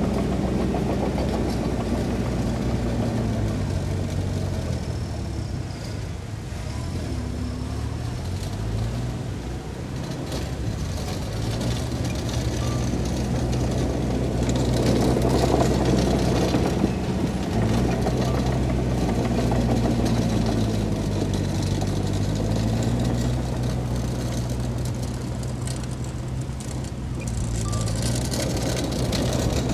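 Diesel engine of heavy earthmoving machinery working under load, its pitch rising and falling repeatedly as it revs and eases off.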